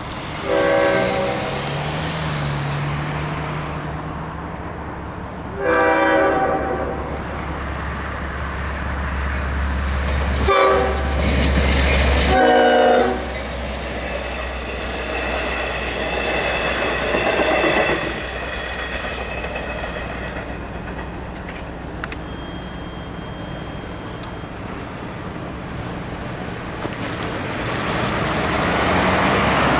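An EMD DE30AC diesel locomotive's Nathan K5LL five-chime horn sounding the grade-crossing signal: long, long, short, long. The locomotive's diesel engine then passes and fades, followed by the three Kawasaki C3 bi-level cars clattering over the rail joints. Road traffic is rising again near the end.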